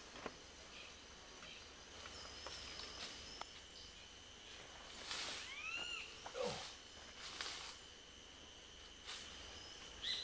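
Rainforest background of a steady high insect drone, with short chirping bird calls about halfway through and again at the end. A few brief rustles, the loudest sounds, come from handling in dry leaf litter around the middle.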